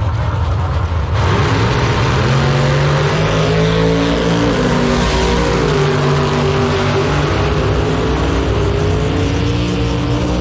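Drag race cars, a Camaro and a truck, launch at full throttle about a second in and run hard down the strip. The loud engine note climbs, dips briefly a few seconds in, climbs again and falls away near the end.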